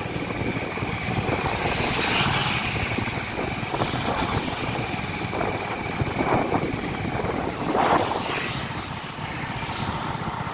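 Motorcycle running along a road while being ridden, a steady engine drone mixed with rushing air noise, with a few brief louder swells.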